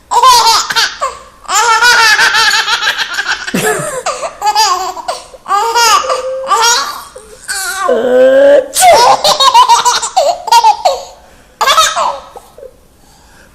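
Baby laughing hard: high-pitched belly laughs in rapid bouts, with short gasps for breath between them, quieter near the end.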